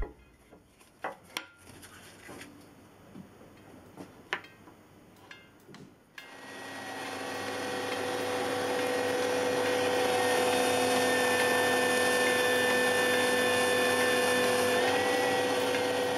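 Light clicks and taps of small wooden pieces being handled, then a Parkside benchtop belt sander switched on about six seconds in. It spins up over a few seconds to a steady whine and hiss while a wooden piece is held on the belt to sand and round its edges, and its note shifts briefly near the end.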